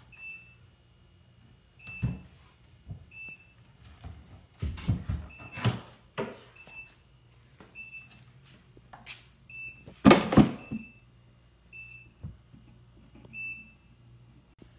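Knocks and bumps from a wooden chest being opened and moved about in, the loudest about ten seconds in, while a short high beep repeats about once a second.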